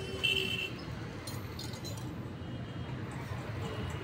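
Light metallic clinks and taps as a T-handle socket wrench turns out the clutch pressure-plate bolts of a motorcycle, with loose bolts and clutch parts knocking together by hand. A steady low background rumble runs underneath.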